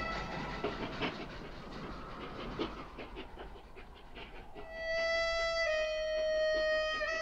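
A soft, breathy hiss, then about four and a half seconds in a harmonica starts holding long, drawn-out notes, changing pitch about once a second.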